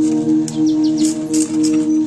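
Background music: a steady held drone with short, sharp high clicks and brief chirps over it.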